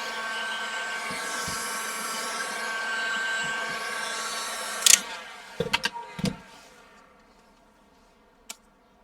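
A hot-air blower running steadily with a whining fan, used to soften the adhesive holding the iMac's glass screen. It cuts off with a sharp click about five seconds in, then come a few knocks and handling sounds, and it goes nearly quiet.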